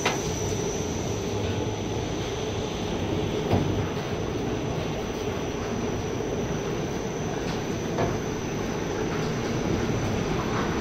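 Steady running noise of sawdust-handling machinery (belt conveyor and its electric motors), with a constant high whine, a lower hum and three short sharp knocks.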